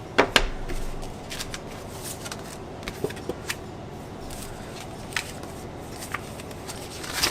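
Paper and packaging being handled: scattered rustles and sharp light clicks as a sticker sheet and an instruction manual are sorted through.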